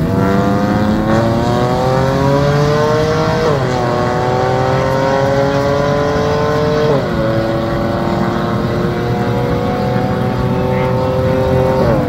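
Race car engine accelerating flat out through the gears. Its pitch climbs steadily, then drops with an upshift about three and a half seconds in, again about seven seconds in, and once more near the end.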